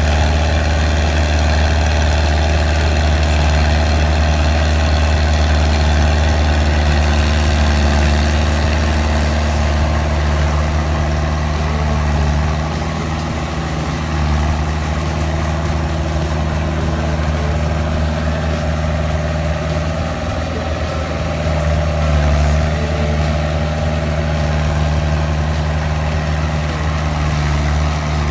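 Fiat 80-66 DT tractor's four-cylinder diesel engine running steadily with a deep, even note. The sound dips briefly twice, about halfway through and again about two-thirds in.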